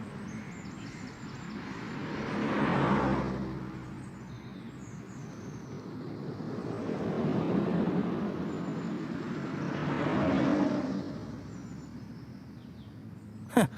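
Road traffic: vehicles passing one after another, their noise swelling and fading three times.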